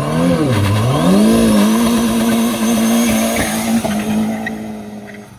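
Honda del Sol's engine revving hard, dipping for a moment and then held at steady high revs while its tyres spin and squeal in a burnout. The sound falls away near the end.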